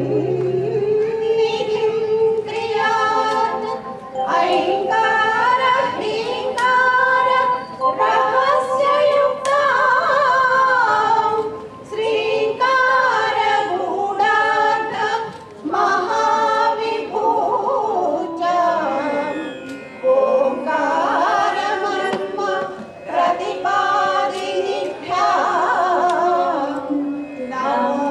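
A group of women singing a Carnatic-style song together into microphones, with keyboard accompaniment.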